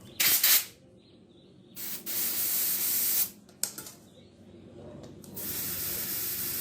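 Compressed air hissing in bursts as a bicycle tyre is inflated from an air compressor: a short blast, a longer one of about a second and a half, a brief puff, then a steady hiss from about five seconds in.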